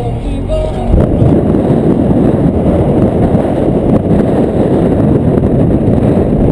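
Heavy wind buffeting on the microphone of a camera held out of a moving car's window, a loud, low, even roar that sets in about a second in.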